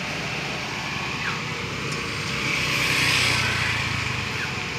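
Heavy diesel engine running steadily at idle, with a louder rushing swell that rises and fades about three seconds in.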